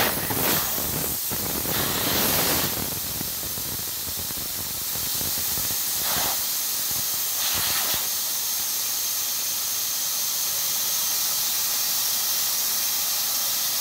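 Air hissing steadily out of a light-truck tyre's valve as the tyre is deflated all the way, a little louder and more uneven in the first few seconds.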